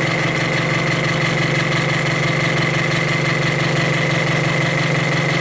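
Electric scroll saw running with no load, its pinned blade moving up and down in a newly fitted blade mount: a steady, loud motor hum with a thin high whine over it.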